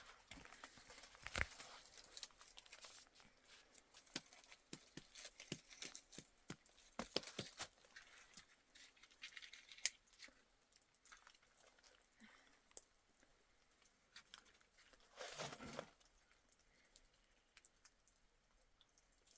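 Faint scattered clicks, crackles and rustling handling noises, with one louder rustle lasting about a second, some fifteen seconds in.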